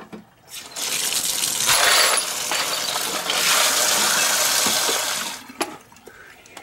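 Water pouring out of a plastic pot of wet brass cartridge cases through a perforated strainer lid into a sink, the cases clinking against each other as the pot is tipped. A few sharp clinks near the end as the pot is set down and the lid lifted off.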